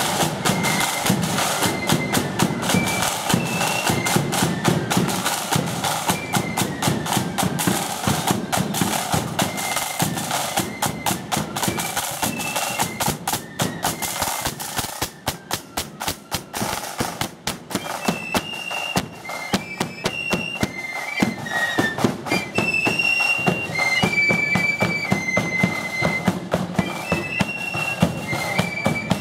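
Marching flute band playing a march: many flutes carrying a high melody together over snare drums and a bass drum beating steadily.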